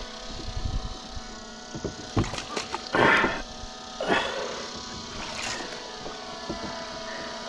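Largemouth bass splashing at the surface beside a kayak as it is landed by hand: two splashes about three and four seconds in, with a few light knocks and clicks of handling, over a steady hum.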